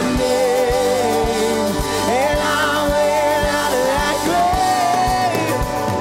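Worship band playing an instrumental passage: a soprano saxophone and a bowed electric cello carry a wavering melody over keyboards and a steady kick drum beat about twice a second.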